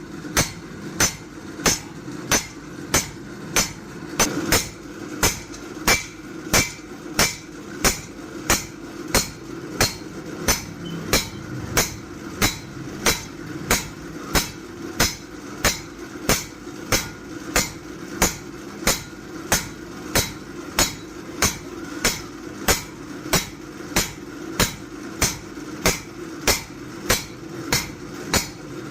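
Hand hammer striking a chaff-cutter blade on an anvil at a steady, even pace of about two blows a second, over a steady low hum.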